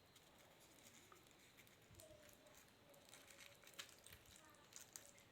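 Near silence: faint room tone with a scattering of light, brief crackles and clicks.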